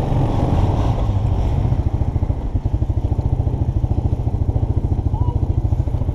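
Single-cylinder ATV engine idling; about two seconds in it settles into a slower, lumpier pulsing beat.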